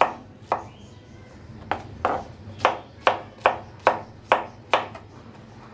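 Kitchen knife chopping peeled pineapple on a plastic cutting board, each stroke knocking the blade against the board. About ten knocks: two at the start, a pause of about a second, then a run of about two to three a second that stops a little before the end.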